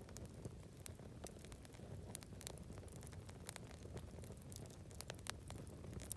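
Wood campfire crackling, with irregular sharp pops and snaps over a low steady rush.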